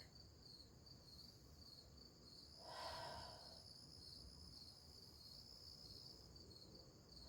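Faint, steady insect chirring, a high, evenly pulsing trill. About three seconds in there is a single soft rush of noise, like a breath.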